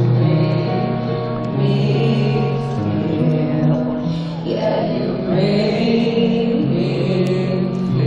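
Live concert music over a PA, recorded from the audience: a slow song of long held low notes, with a woman singing into a microphone.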